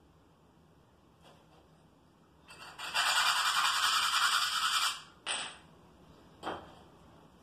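A paper towel rubbed briskly over the hands, a loud steady rustling for about two and a half seconds, followed by two short scrapes as a wall tile is pressed and rubbed into place.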